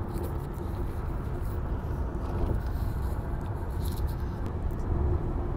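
Steady road rumble and engine hum of a car, heard from inside its cabin.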